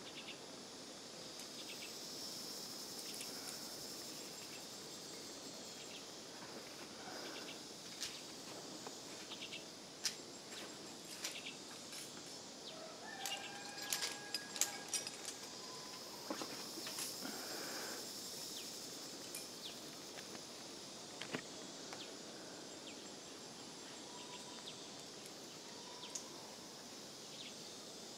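Outdoor ambience of steady insect buzzing with occasional short bird calls, and a cluster of sharp clicks about halfway through.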